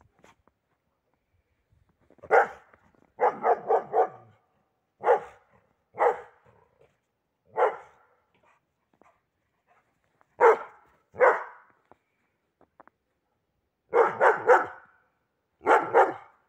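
A dog's alert, watchdog barking in bouts. First comes a single bark, then a quick run of four, then single barks a second or more apart, and near the end two more quick runs of three or four.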